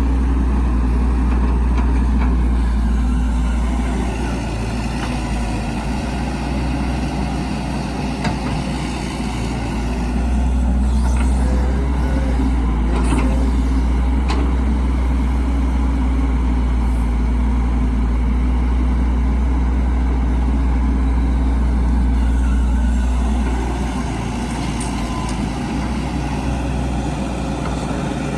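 Diesel engine of heavy construction machinery running steadily, easing off twice and picking up again, with a few clanks in the middle and a rise in pitch at the very end.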